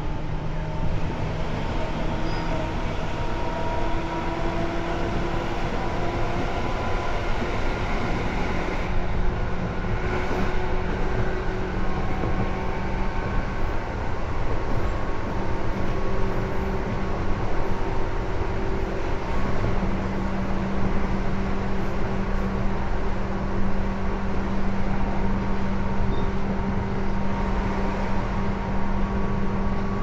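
Tobu 10030 series electric train running, heard from inside the car: a steady rumble of wheels on rails with a motor and gear whine that rises slowly in pitch as the train gathers speed.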